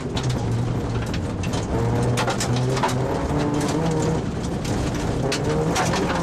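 Rally car engine heard from inside the cabin, running hard on a gravel stage, its note rising and falling with throttle and gear changes. Sharp knocks and clicks of gravel striking the car come through all along.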